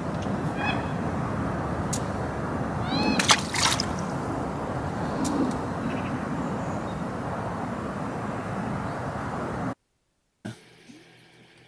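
Steady outdoor rushing noise, with a few short high chirping calls and sharp clicks, most of them about three seconds in. The noise cuts off abruptly near the end and gives way to a much quieter hum.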